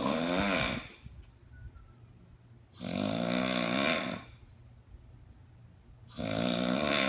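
A sleeping person snoring loudly in long rattling breaths, three snores about three and a half seconds apart with quiet gaps between. The snoring is presented as the sound of sleep apnea.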